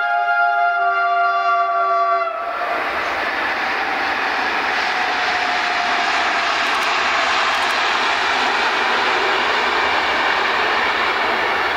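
Passenger train's locomotive horn sounding a chord of several steady tones for about two and a half seconds. Then the train runs across a viaduct with a steady rolling rumble.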